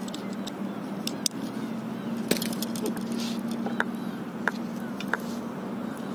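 Scattered light clicks and knocks of fishing gear being handled on a paddleboard, about five of them, over a steady low hum.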